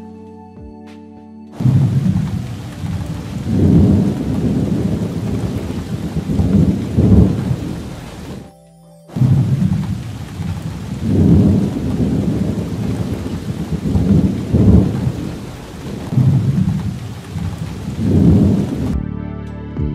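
Heavy rain with rolling thunder: a steady hiss of rain under repeated deep rumbles. It starts abruptly, breaks off briefly near the middle, and stops abruptly near the end.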